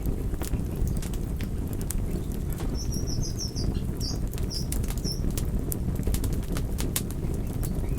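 Campfire burning: a steady low rush of flames with frequent sharp crackles and pops of burning wood. A run of short high chirps comes in about three seconds in.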